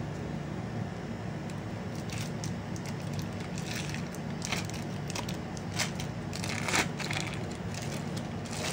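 Foil wrapper of a block of cream cheese being peeled open and crumpled by hand: a run of crackly rustles starting about two seconds in, over a steady low background hum.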